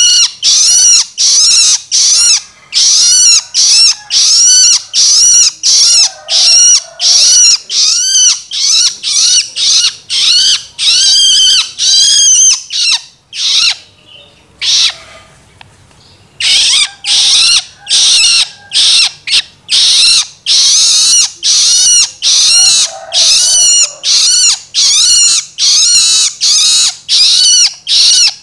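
Juvenile long-tailed shrike (cendet) giving its begging call (loloan): loud, rapid, harsh calls that rise and fall in pitch, two to three a second. There is a pause of about three seconds halfway through.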